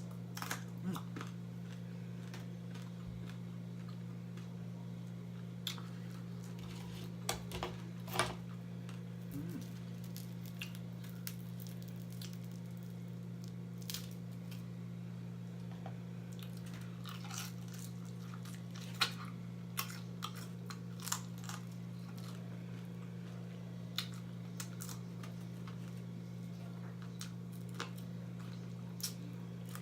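Close-up eating: biting and chewing meat off chicken wing bones, with scattered small crunches and clicks, over a steady low hum.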